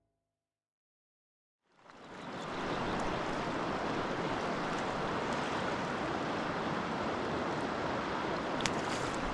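Silence at first, then a shallow river running over stones fades in and flows steadily. There is a brief splash near the end.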